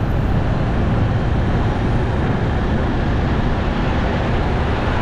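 Steady rumble of city street traffic, even and unbroken.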